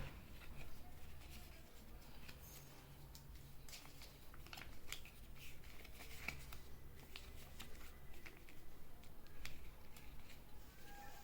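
Box and packaging of AirPods Pro being handled and opened: scattered small clicks, taps and rustles, over a low steady hum.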